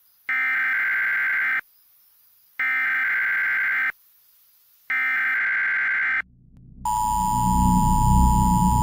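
Emergency Alert System broadcast tones. Three identical buzzy, warbling data bursts (the SAME header), each just over a second long with a second's gap between them. About seven seconds in, the steady two-tone EAS attention signal begins, with a low rumbling music bed rising beneath it.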